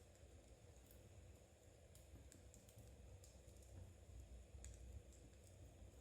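Metal knitting needles clicking together softly and irregularly as stitches are worked, over a faint low rumble.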